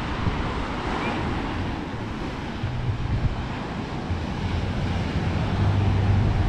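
Surf breaking and washing up the shore, mixed with strong wind buffeting the microphone as an uneven low rumble, growing a little louder towards the end.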